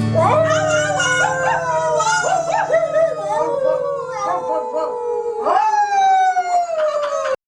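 Dog howling in long falling calls over the last chord of a song, which stops about four and a half seconds in.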